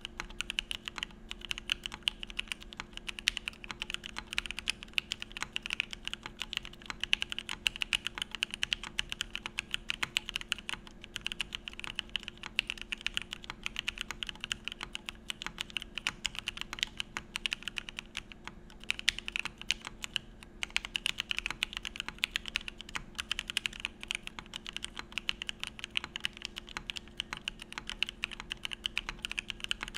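Fast, continuous typing on a mechanical keyboard: a Geonworks Frog with an aluminum plate and lubed 43 Studio Opblack linear switches under CRP R4 keycaps, giving a dense run of keystroke clicks and clacks. The typing pauses briefly twice, near the middle.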